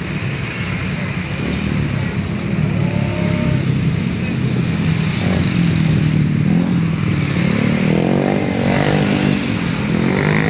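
Motor scooter engines running as a stream of motorcycles rides past, with several engines revving and rising in pitch from about the middle on.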